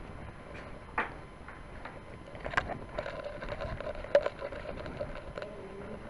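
Scattered sharp clicks and knocks, the loudest about one, two and a half and four seconds in, over low background noise.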